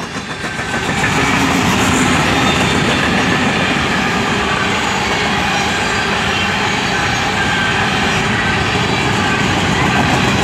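Freight train of coal gondola cars rolling past close by: a steady rumble and clatter of steel wheels on rail. It grows louder about a second in and then holds.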